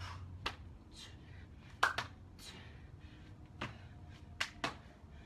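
Sharp, irregularly spaced slaps of a person doing burpees with a clap push-up and a jump tuck: hands clapping and hitting an exercise mat, feet landing.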